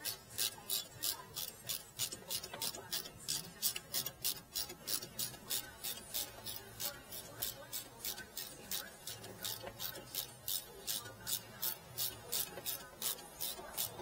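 Background music with a steady, quick beat of high, crisp percussion strokes, about three a second, over a soft low bass.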